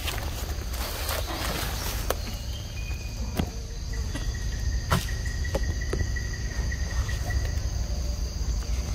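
Forest ambience: a steady high insect drone, with a second steady tone joining for a few seconds in the middle, over scattered rustles and clicks in dry leaf litter and a low rumble.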